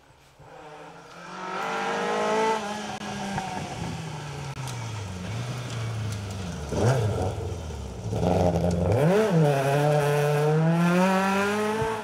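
Ford Escort RS1800 rally car's four-cylinder engine coming in on gravel. It revs up, then drops as the car slows for a hairpin, with two sharp rev blips on the downshifts. The revs then climb steadily as it accelerates out, with gravel crackling and scraping under the tyres.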